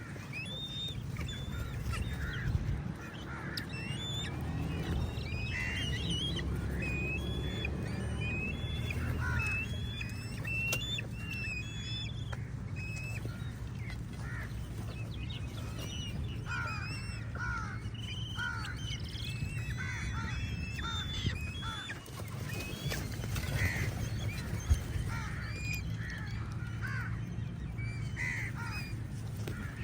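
A flock of crows cawing over and across one another in many short, harsh calls, over a steady low rumble. A single sharp knock stands out late on.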